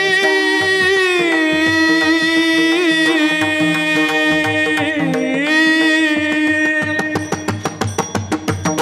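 A bhajan singer holds one long note with slight pitch bends over mridang strokes. About seven seconds in, the held note fades and the mridang plays a quick run of strokes.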